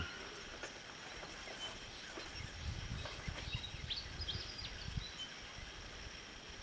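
Faint, scattered bird chirps over a low rumbling background noise that is strongest in the middle.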